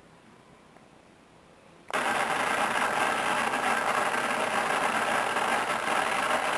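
Television static: a loud, even white-noise hiss that starts suddenly about two seconds in and then holds steady.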